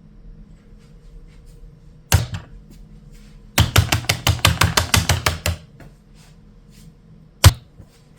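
Keys of a Keychron Q0 Max mechanical numpad being pressed: a single keystroke about two seconds in, a fast run of about a dozen keystrokes a second and a half later, and one sharp keystroke near the end.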